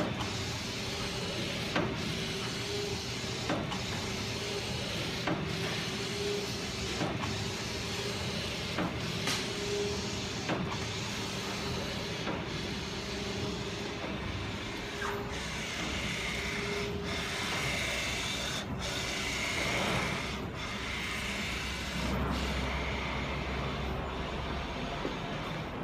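Printing machinery running steadily with a hum and a sharp click repeating about every second and three-quarters, like a machine cycle. A deeper rumble joins near the end.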